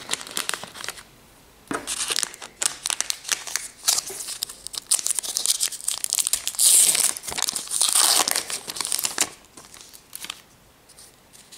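Wrapper of a Topps Gypsy Queen trading-card pack being torn open and crinkled by hand, loudest about seven seconds in, then fainter handling of the cards near the end.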